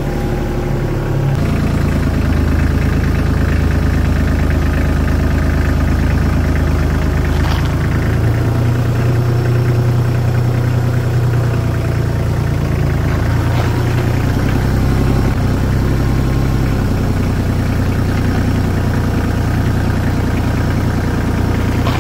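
Tractor engine running at low speed, steady and loud, its note shifting a couple of times as the rear tyre rolls over a basketball. There is no bang: the ball does not burst.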